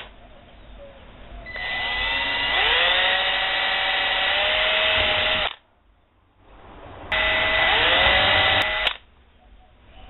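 Milwaukee cordless drill boring small pilot holes through a plexiglass panel with a 1/16-inch bit. It makes two runs, the first about four seconds long and the second about two, and each opens with the motor's whine rising in pitch as it spins up.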